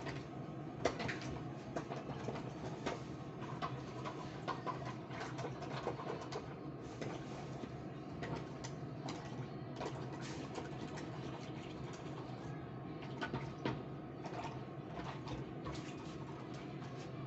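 Scattered light clicks and knocks, irregular and frequent, over a steady background hum.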